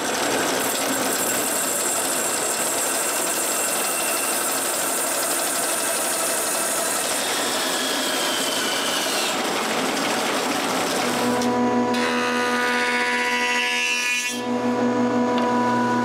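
Bandsaw running and cutting through a hardwood piece, a steady rushing noise. About eleven seconds in it gives way to a jointer-planer running with a steady hum, which dips briefly once.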